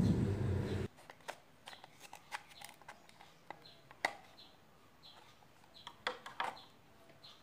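Scissors cutting a plastic shampoo bottle: scattered sharp snips of the blades, a second or two apart, with a louder pair near the end. A loud steady drone with held tones cuts off suddenly about a second in.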